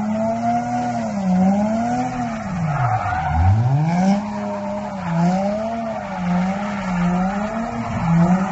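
A drift car's engine revving, its pitch rising and falling over and over as the throttle is worked. About three and a half seconds in, the revs drop sharply and climb straight back.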